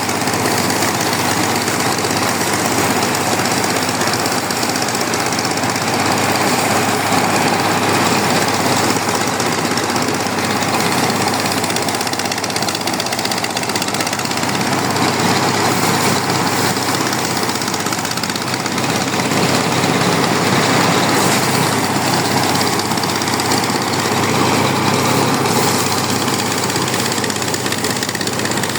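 Engine of a rice harvesting machine running steadily under load, with a dense mechanical clatter.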